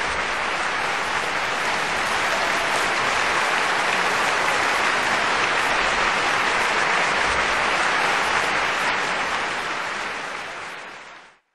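Audience applause, steady and fading out over the last second or so.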